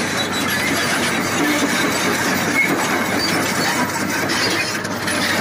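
Komatsu PC220-7 excavator travelling on its steel crawler tracks, its six-cylinder diesel running, with continuous clanking and squeaking from the track chains.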